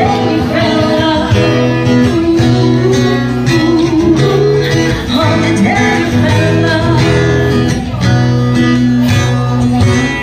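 Live acoustic duo amplified through a sound system: a woman singing a slow song into a microphone over a strummed acoustic guitar.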